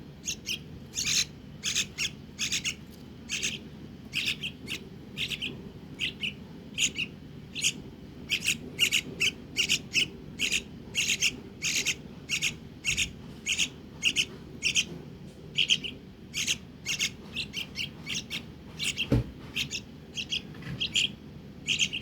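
A young hand-reared bird calling over and over, short sharp chirps about two or three a second, with a single soft knock about three-quarters of the way through.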